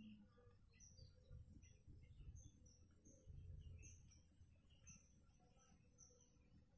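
Faint bird calls, short high chirps repeating about once a second, over a steady high-pitched buzz that swells about once a second, with a low rumble underneath.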